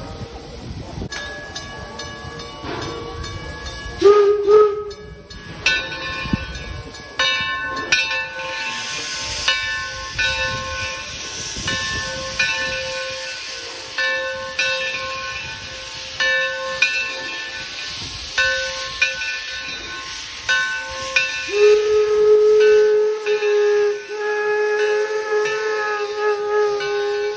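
1873 steam locomotive Torch Lake starting away: steam hissing from its open cylinder cocks with regular beats about once a second, a short steam-whistle toot about four seconds in, and a long steady whistle blast over the last several seconds.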